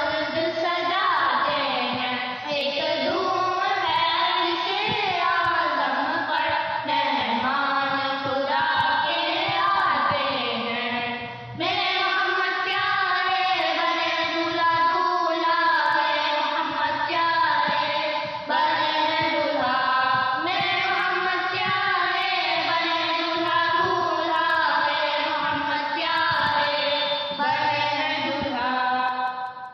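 Urdu naat, an Islamic devotional song, sung by several voices together in a flowing melody, with one short pause between lines about eleven seconds in.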